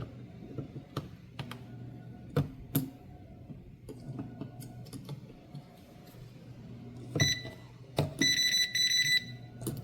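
A few light clicks and taps of handling, then an electrical voltage tester beeping near the end: a short high beep, then a rapid run of beeps lasting over a second. The beeping signals that the wiring behind the wall switch is still live.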